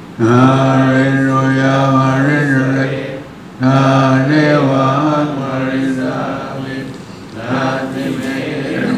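Buddhist monks chanting Pali in unison on a low, nearly level pitch. The chant comes in long held phrases of about three seconds, with short breaks between them about three and seven seconds in.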